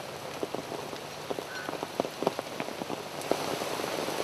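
Rain falling steadily, with separate drops striking close by.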